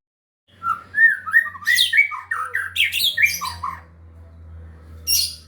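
White-rumped shama (murai batu) singing a fast run of varied whistled and chattering notes for about three seconds. A single short, harsh call follows near the end.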